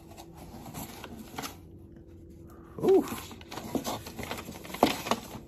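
Cardboard box and paper packing being handled and rustled, with scattered light clicks and one sharp tap near the end.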